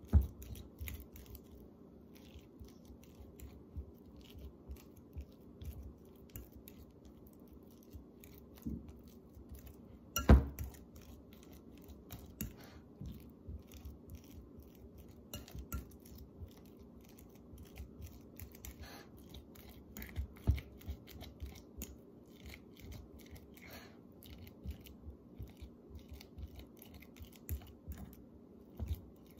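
A metal fork mashing ripe bananas into a purée in a glass bowl: irregular soft squishes and small clicks of the fork against the glass, with one sharp louder knock about ten seconds in. A faint steady hum lies underneath.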